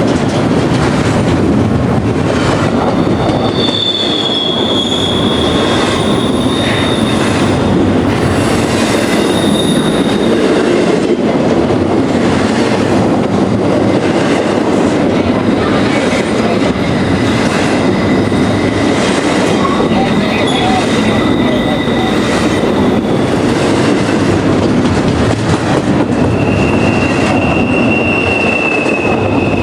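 Freight train cars rolling past, a loud steady rumble of wheels on rail. Thin, high wheel squeal rises out of it now and then: a long screech from about 4 to 10 seconds in, a fainter one in the middle, and another near the end.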